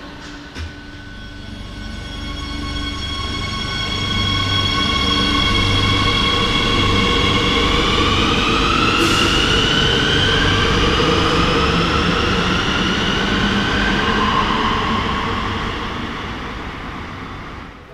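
Madrid Metro electric train pulling out of the station and accelerating away. Its motors give a whine of several tones that climbs in pitch over a building rumble of wheels on rail. The noise is loudest as the cars pass and dies away as the train leaves, with one sharp click about halfway through.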